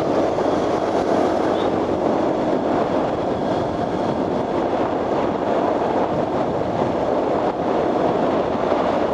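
Motorcycle engine and riding noise, steady and unbroken, while overtaking on the road.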